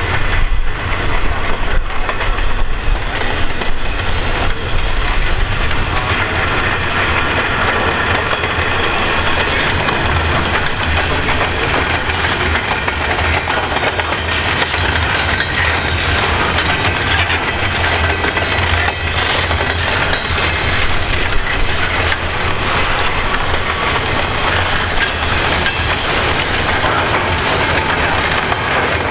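Double-stack intermodal well cars of a long freight train rolling past: a steady rumble of steel wheels on the rails with dense rapid clicking.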